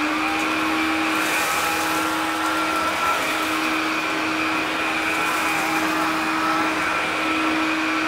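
Bosch BCH86SILGB cordless stick vacuum running with a steady motor hum and whine as its floor head is pushed over carpet. There are brief hissing patches as it sucks up porridge oats.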